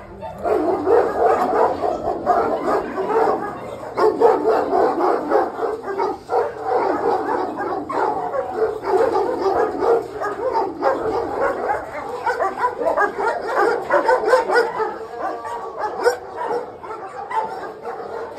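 Many kennel dogs barking, their barks overlapping without a break.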